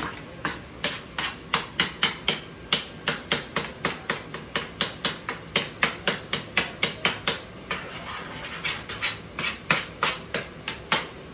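A metal utensil mashing boiled potatoes in a metal saucepan, knocking against the pan in a quick steady rhythm of about three strikes a second. The knocks soften for a moment about two-thirds of the way through, then pick up again.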